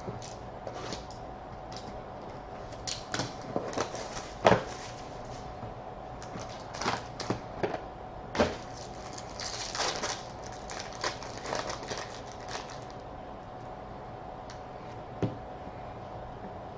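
A box of trading cards being opened and handled: scattered sharp clicks and taps of cardboard and card stock, with a brief crinkling rustle of packaging about ten seconds in, then only a few faint taps.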